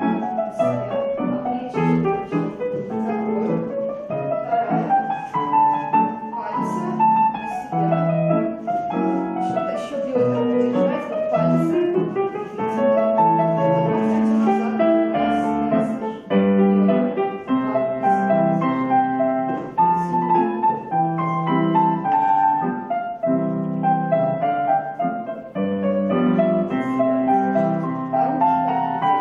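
Piano playing slow classical-style music, the accompaniment for ballet floor exercises, its melody rising and falling, with a brief break between phrases about sixteen seconds in.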